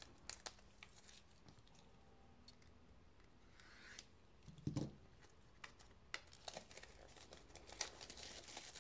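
Faint handling of a shrink-wrapped cardboard product box: scattered small clicks and taps, a soft thump about halfway through, and light crinkling of the cellophane wrap near the end.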